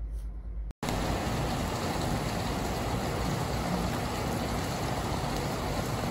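Steady rain hiss through an open window, starting after a brief dropout about a second in.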